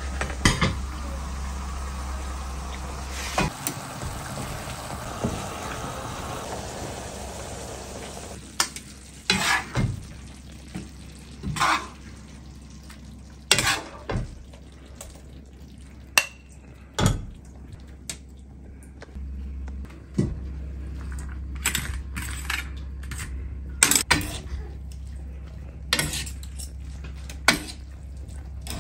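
Pasta water pouring from a metal pot through a plastic colander at first, fading away over the first several seconds. Then a spatula scraping and knocking against a bowl and a metal frying pan in sharp, irregular taps as meat sauce is spooned into the pan and spaghetti tossed in it, with light sizzling.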